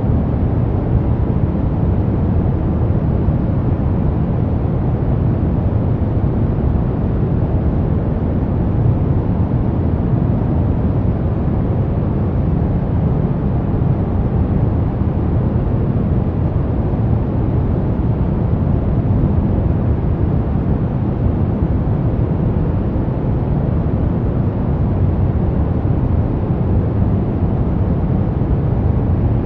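Brown noise: a steady, unchanging deep rumbling hiss, strongest in the low bass and fading toward the highs.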